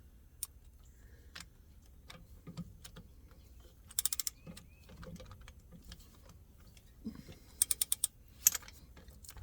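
Hand ratchet and socket clicking in two short runs of rapid clicks, about four seconds in and again near the end, with scattered single clicks between, as a brass air fitting is screwed into a truck's air dryer.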